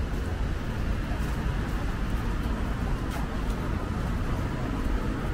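Steady city street ambience dominated by a low traffic rumble, with a few faint ticks.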